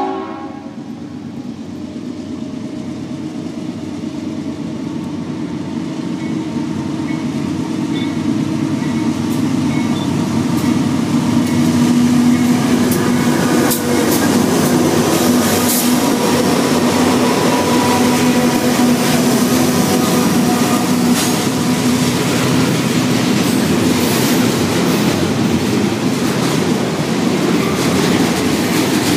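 Union Pacific diesel freight locomotives approaching and passing, the engine drone growing louder and peaking as they go by. Then double-stack container cars roll past with a rapid clickety-clack of wheels over the rail joints and occasional faint wheel squeal.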